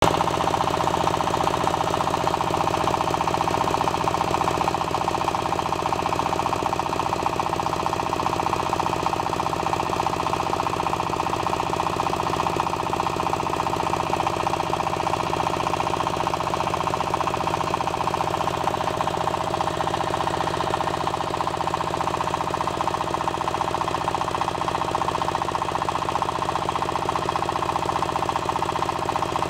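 Single-cylinder horizontal diesel engine running steadily with a fast, even knock, belt-driving a small rotary water-well drilling rig.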